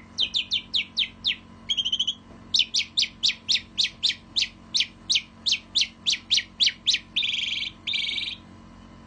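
Male pied starling (jalak suren) singing: a fast series of short whistles that slide downward, about three or four a second, broken by a short buzzy note about two seconds in, and ending in two harsh rasping buzzes.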